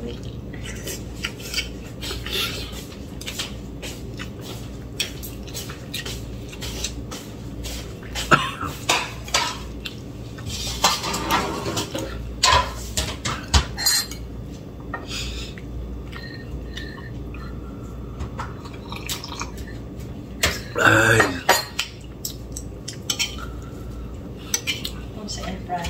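Spoon and fork clinking and scraping on a plate while eating, in scattered irregular taps. About twenty seconds in comes a brief, louder noise, the loudest moment.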